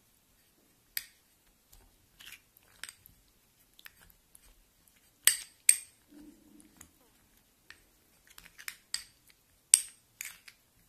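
Metal spoon clinking and scraping against a small glass bowl while mashing a lump of homemade yeast dough to dissolve it in rose water. Irregular clicks, the sharpest a little past five seconds in and again near the end.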